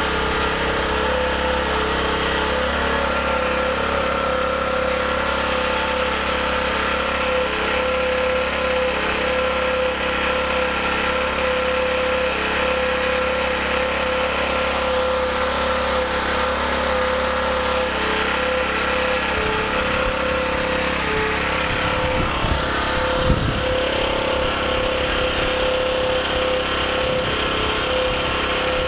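Small gasoline generator engine running steadily while hydrogen-oxygen (HHO) gas from an electrolyzer is fed into it. A single sharp click sounds once late on.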